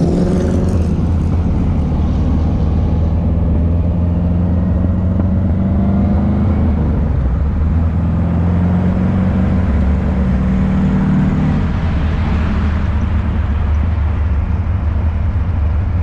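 Hot rod engine running loudly, its pitch climbing and easing back twice as the throttle is worked.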